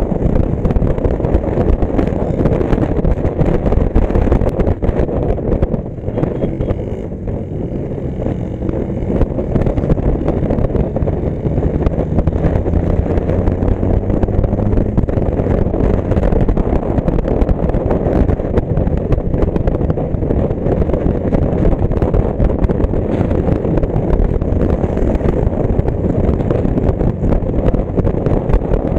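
Motorcycle riding along a road, heard from a camera mounted on the bike: steady wind rush over the microphone with the engine running underneath, its pitch rising gently partway through.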